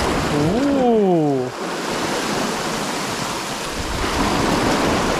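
Sea water washing and splashing against the foot of rocks close by, a steady rush of surf.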